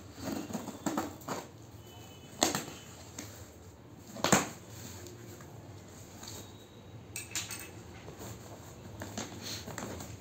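A cardboard shipping box being opened by hand: packing tape slit and the flaps pulled open, with two sharp loud rips a couple of seconds apart, then cardboard rustling and scraping as the hands work inside the box.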